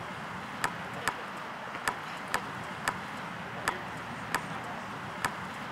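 A basketball being dribbled on an asphalt court: about eight sharp bounces at an uneven pace, over a steady background hiss.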